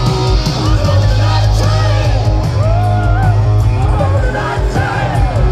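Hard rock band playing live through a stadium PA, heard from the crowd near the stage: heavy bass and drums under a lead line whose notes bend and waver.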